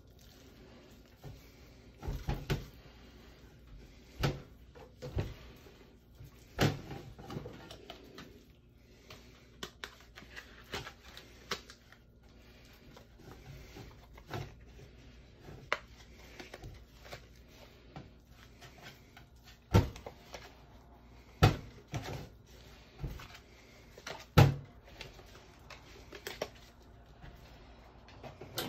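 Irregular knocks and clicks of handling as a beef joint is tied with butcher's twine on a metal baking tray, with a few louder knocks in the second half.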